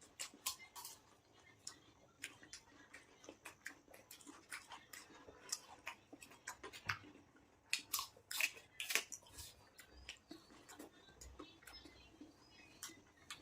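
Close-up chewing of fresh fruit: irregular crisp, crunchy clicks and wet mouth sounds, louder for a few seconds near the middle.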